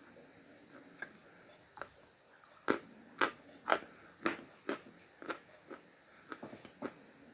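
Khrapovsky chalk coated in paste being bitten and crunched between the teeth. A couple of single crunches come first, then a quick run of about ten sharp crunches, loudest a little under three to about four seconds in, growing softer as the chewing goes on.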